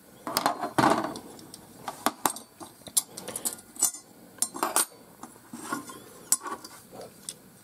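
Irregular metallic clicks and clinks from a Stanley 99E utility knife's zinc die-cast handle halves and its blade being handled. One half is set down and the blade is worked out of the other.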